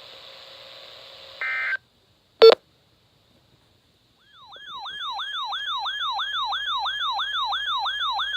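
Electronic emergency-alert siren announcing a new warning: a fast repeating wail of falling-pitch sweeps, about three to four a second, that starts about four and a half seconds in. Before it come a short steady tone and a single loud click about two and a half seconds in.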